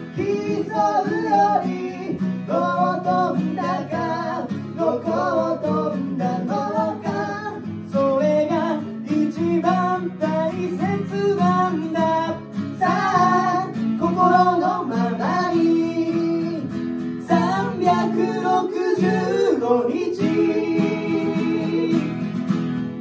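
Two male voices singing a Japanese pop ballad together over two strummed acoustic guitars.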